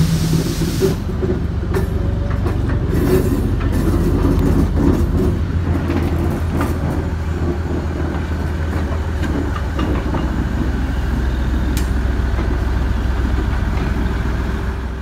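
Vintage GE diesel switcher locomotive's engine running steadily as it moves slowly past close by, with a few sharp clicks from the wheels on the rails.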